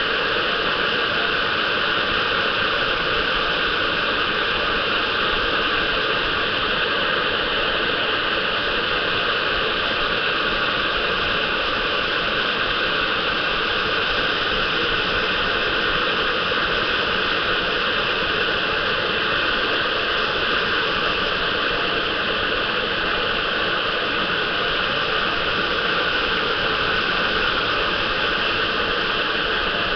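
Hot air gun blowing steadily, a constant rushing hiss, as it heats a PlayStation 3's RSX graphics chip to reflow the solder beneath it.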